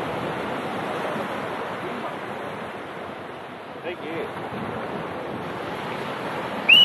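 Surf breaking on a sandy beach, with wind buffeting the microphone. Near the end comes a brief, loud, high-pitched chirp.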